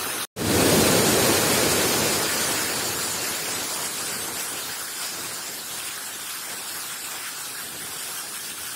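A rain-swollen mountain stream in flood, white water rushing and pouring over a concrete weir in a steady, dense rush. It cuts out for an instant just after the start, is loudest right after, then slowly eases.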